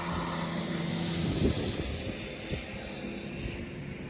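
A steady motor drone with a low, even hum over a noisy hiss, with a brief louder knock about a second and a half in.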